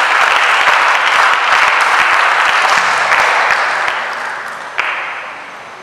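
Audience applauding, dense clapping that fades away over the last two seconds.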